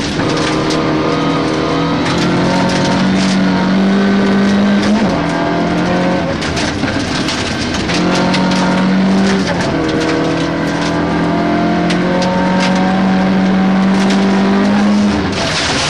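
Rally car engine at high revs, heard from inside the cabin, pulling hard with its pitch slowly climbing. The revs drop briefly about five seconds in and again near the end, as the driver lifts or changes gear. Sharp ticks and rattles from loose gravel striking the underside run throughout.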